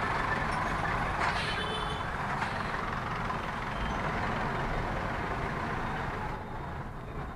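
Steady traffic noise of a congested street heard from a small car creeping along in stop-and-go traffic. A short, high-pitched ringing tone sounds about a second in, and the noise eases a little near the end.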